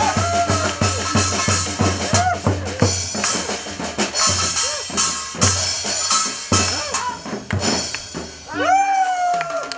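Live band music for a Korean pumba performance: drum kit and a Korean barrel drum keep a fast, steady beat of about three strokes a second, with short gliding vocal shouts over it. Near the end the drumming stops and a long held note rings out as the piece ends.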